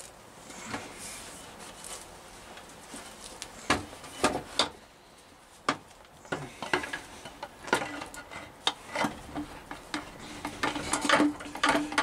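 Metal clinks, knocks and scrapes as a gearbox bell housing is offered up and slid onto the engine's studs at the flywheel end, with a steady low hum coming in about halfway.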